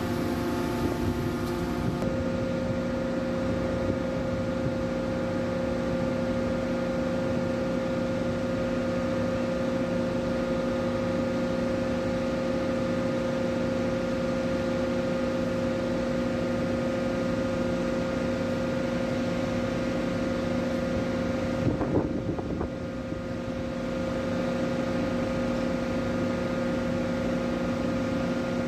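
Hydraulic static pile driver's power unit and hydraulic pump running steadily with a constant hum. There is a brief clatter about 22 seconds in and a short dip before it settles again.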